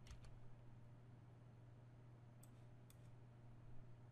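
Near silence with a faint steady low hum, broken by a few faint computer-mouse clicks.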